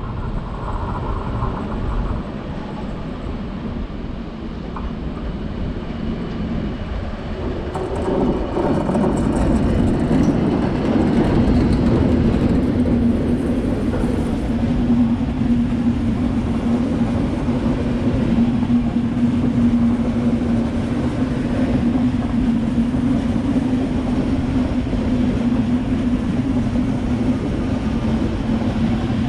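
Train at close range, getting louder about eight seconds in, after which a steady low hum from the train carries on.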